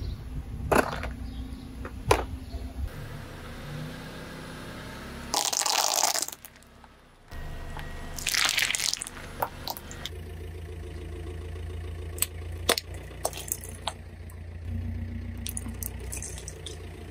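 A car's tyres crushing small objects over a low, steady engine rumble. There is a loud crunching, squelching burst as a pile of small yellow liquid-filled balls is squashed, then a series of sharp plastic cracks and clicks as a row of plastic whistles is run over near the end.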